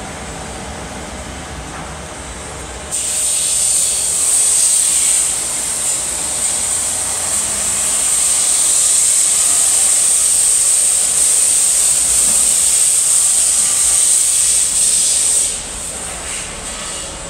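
A loud, steady high-pitched hiss starts suddenly about three seconds in and cuts off suddenly near the end, over a low steady rumble.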